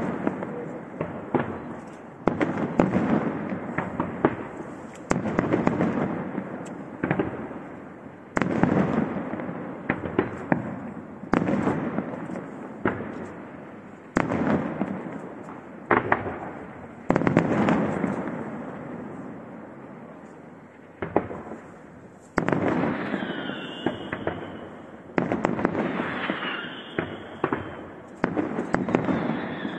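Aerial firework shells bursting in steady succession, a loud bang every second or two, each one fading over a second or two with crackling. In the last third, short falling whistles sound along with several of the bursts.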